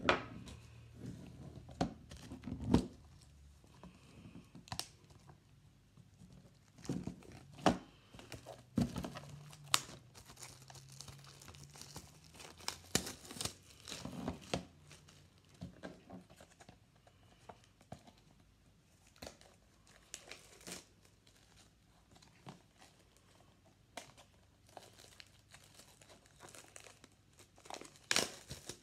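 Plastic shrink wrap being cut and torn off a DVD case and crumpled: irregular crinkling and crackling with scattered sharp clicks.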